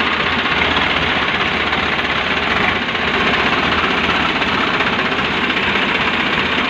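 Swaraj 735 FE tractor's three-cylinder diesel engine running steadily.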